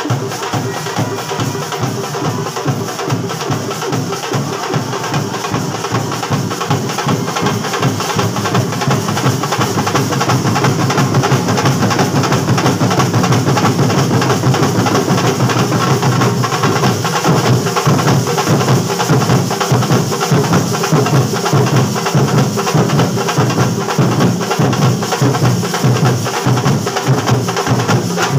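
Kerala bandset drummers playing a fast, driving drum rhythm, dense repeated strikes with a heavy low beat, getting louder about ten seconds in.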